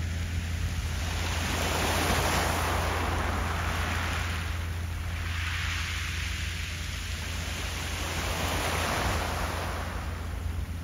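Wind gusting across the microphone: a rushing hiss that swells and eases several times over a steady low rumble.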